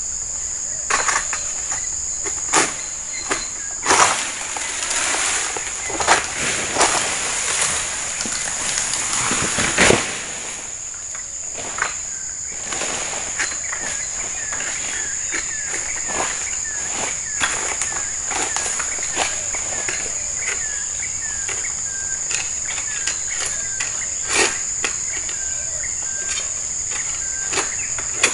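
Long-poled harvesting sickle cutting oil palm fronds and bunches: irregular sharp knocks, scrapes and rustling crashes, the loudest crash about ten seconds in, over a steady high insect drone.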